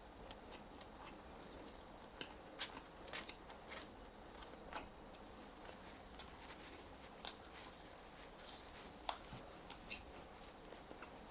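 Close-miked eating sounds: fries being chewed, heard as irregular soft crunches and small wet mouth clicks over a low hiss, with a few sharper clicks standing out.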